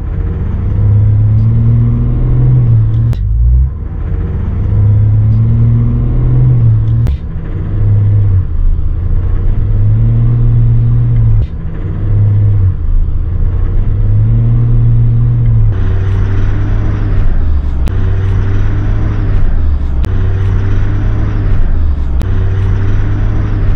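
Chevrolet Silverado 1500's 3.0 L Duramax LM2 inline-six turbodiesel pulling away from a stop under a trailer load, heard from inside the cab, its note repeatedly rising and falling back. The engine has developed a knock at low rpm that the owner says sounds like an injector knock, with a whistle he takes for an exhaust leak.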